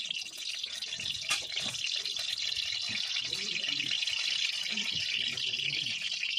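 Oil sizzling steadily in a kadai over the fire, with a single sharp click about a second in.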